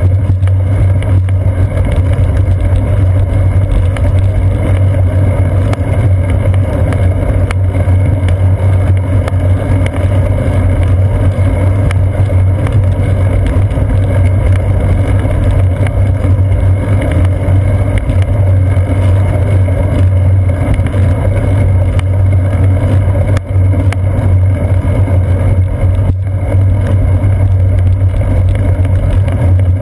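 Steady low rumble of wind buffeting and road vibration picked up by a GoPro Hero 2 mounted on a bicycle's seat post as the bike rolls along a paved path.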